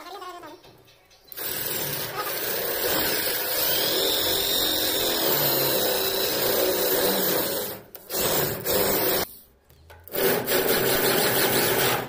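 Electric drill with a hole-saw bit cutting a round hole through a wooden door. It runs steadily from about a second and a half in, stops briefly near eight seconds for a short burst, then cuts again from about ten seconds.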